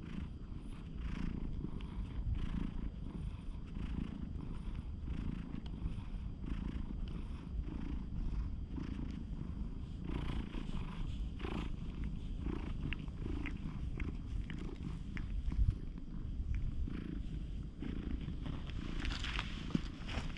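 Cat purring while being stroked: a steady, pulsing low rumble close up, with faint rustling of the hand on its fur.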